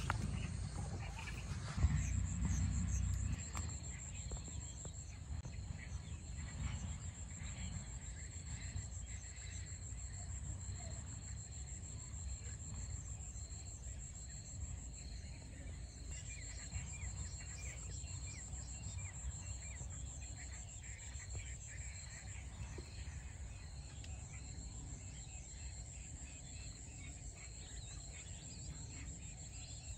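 Insects trilling in a steady high buzz, with a second insect call pulsing evenly and more slowly beneath it. Under them a low rumble, strongest in the first few seconds, and a single thump about two seconds in.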